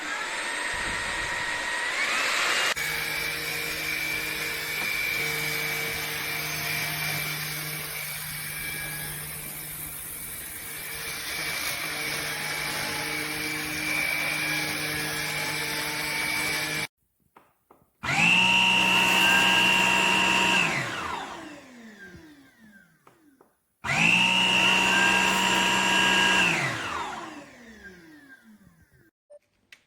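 Tineco A30S cordless stick vacuum's motor running with a steady whine, then stopping. It is then switched on twice more, each time starting abruptly, running for about three seconds and winding down with a falling pitch after being switched off.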